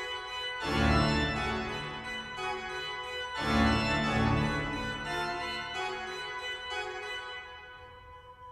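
Pipe organ of the Fredens Kirke being played: two loud full chords with deep bass, about a second and three and a half seconds in, each dying away into quieter, higher chords, the playing growing softer near the end.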